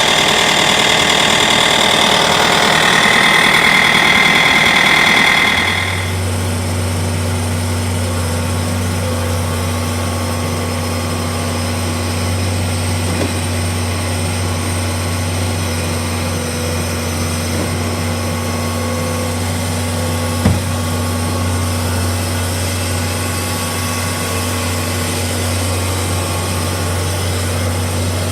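Bobcat T550 compact track loader's diesel engine running at higher speed with a high whine, then dropping to a steady idle about six seconds in. A single sharp click about twenty seconds in.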